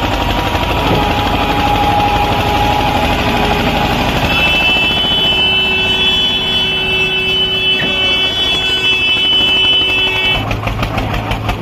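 Eicher 242 diesel tractor engine labouring under heavy load as it drags a loaded trolley through deep mud, hard enough that the front wheels lift. A steady horn sounds over it for about six seconds from about four seconds in.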